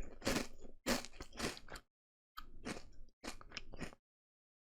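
Crunchy Flamin' Hot Carolina Reaper Cheetos being bitten and chewed close to the microphone: a run of crunches for about two seconds, a short pause, then two more stretches of chewing that stop about four seconds in.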